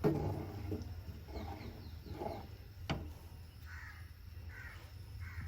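A crow cawing three times in the second half, over a steady low hum, with a sharp click just before the calls.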